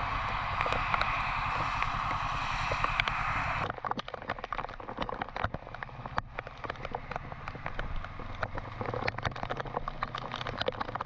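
Steady hiss of traffic on a wet road. About four seconds in it changes abruptly to heavy rain crackling and pattering on a motorcycle's camera as the bike rides through a downpour, its engine running low underneath.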